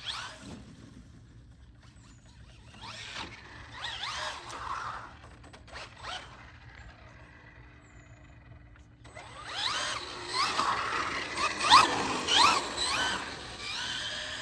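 Radio-controlled rally car's Traxxas Velineon brushless motor whining up and down in pitch as the car accelerates and slows. The whine comes in two spells, briefly about three seconds in, then louder from about nine and a half seconds on.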